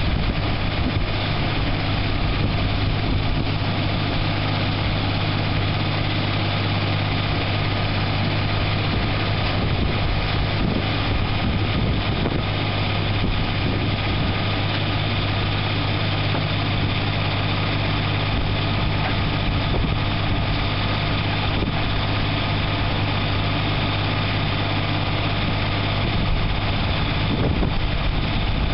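Ford CM224's 24 hp Shibaura three-cylinder diesel engine idling steadily with a low hum.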